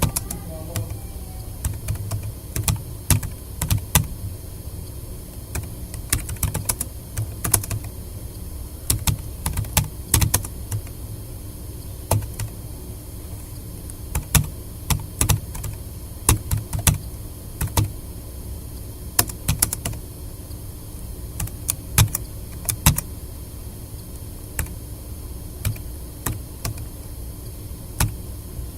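Typing on a tablet PC's keyboard: irregular runs of key clicks broken by short pauses, as in touch-typing practice.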